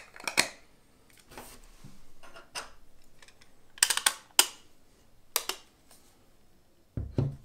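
Plastic rear and front lens caps being fitted onto a Sony FE 70-200 mm F4 G OSS telephoto lens: scattered clicks and handling taps, a quick run of clicks about four seconds in as the front cap snaps on, and a dull thump near the end.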